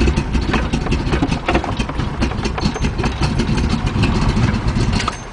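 1974 Corvette's 350 cubic inch V8 idling at low revs through its factory side pipes, with a slightly bigger cam fitted. The sound drops sharply in level just before the end.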